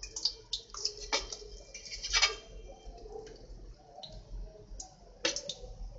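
Drops of dahi bara batter pressed through a perforated aluminium strainer fall into hot frying oil, giving irregular sharp crackles and pops.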